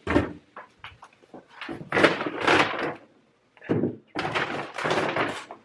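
Paper grocery bag rustling as shopping is taken out of it, in several noisy stretches with a short pause about three seconds in.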